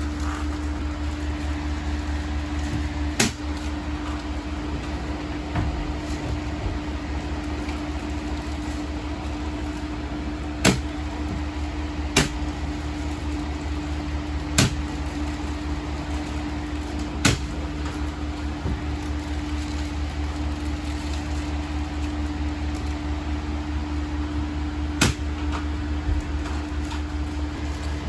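Steady low mechanical hum with a handful of sharp, short clicks or knocks spaced several seconds apart.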